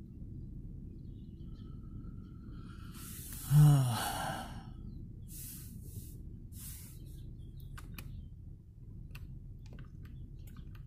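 A short, loud, falling sigh-like sound from a person about three and a half seconds in, over a steady low rumble. A few light clicks and rustles follow.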